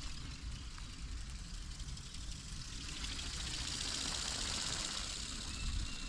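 Remote-control flapping-wing toy bird (ornithopter) in flight, its small electric motor and beating wings a faint whirr, with wind rumbling on the microphone.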